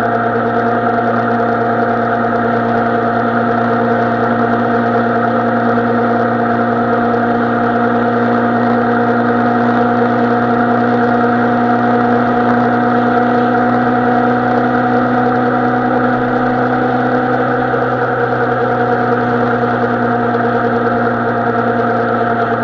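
Carbureted inline-four engine of a 2007 Suzuki Bandit 650N running steadily, its pitch almost unchanging.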